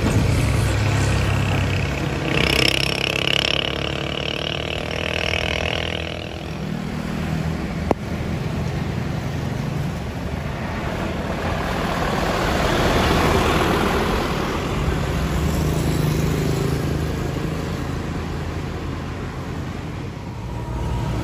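Cargo trucks and motorbikes passing on a road, their engines rumbling, with the engine note falling away early on. The traffic swells to its loudest as a loaded truck comes up and goes by about two-thirds of the way through.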